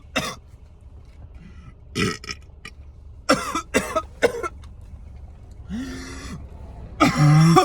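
A man burping several times after chugging a bottle of Sprite: short burps spaced through the clip, a longer one a little before the end, and the loudest, longest one near the end.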